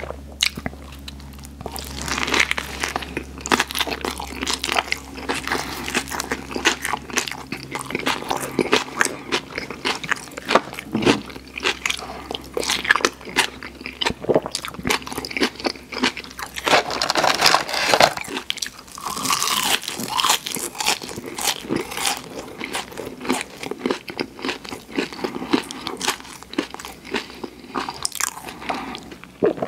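Close-miked biting and chewing of a Subway tuna sandwich with cucumber and green pepper on toasted cheese bread: a dense, continuous run of crisp crunches, heaviest a little past the middle.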